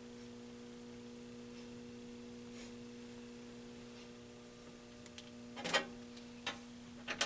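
Steady electrical hum, several low tones held at a constant pitch, with a few light clicks and knocks in the last two seconds.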